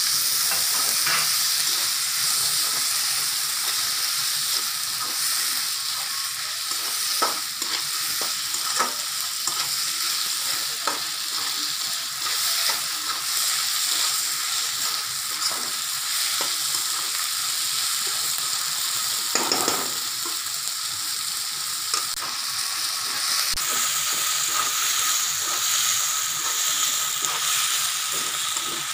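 Onions and chopped tomatoes sizzling in hot oil in a pan, being stirred and sautéed until the tomatoes soften, with frequent clicks and scrapes of the spoon against the pan.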